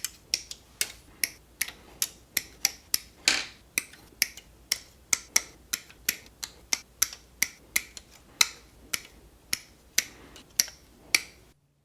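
Crisp plastic clicks, about two to three a second and slightly uneven, from the parts of a plastic model kit being handled and worked during assembly; they stop abruptly near the end.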